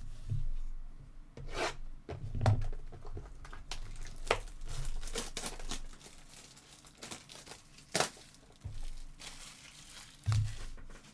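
Foil trading-card pack wrappers being torn open and crinkled by hand, with a run of irregular sharp rips and crackles, the sharpest about eight seconds in.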